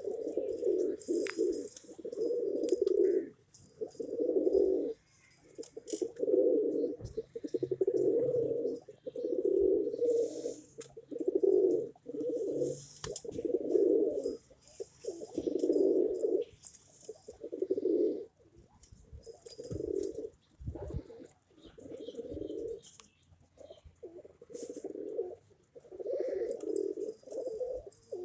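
A flock of domestic pigeons cooing, one low coo after another with hardly a break, about one a second.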